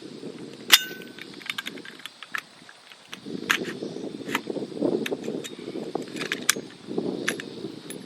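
Sharp, irregular metallic clicks and clacks from handling an AR-15 rifle whose milspec bolt has no ejector, so the spent casing is not thrown clear. One click about a second in rings briefly. A low rustling noise comes and goes between the clicks.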